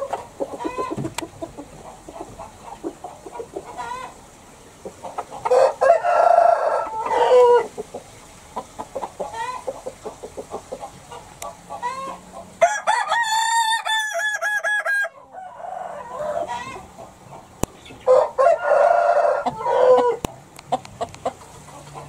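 Roosters crowing in a chicken house: three long crows, the middle one higher and thinner than the other two, with chickens clucking in between.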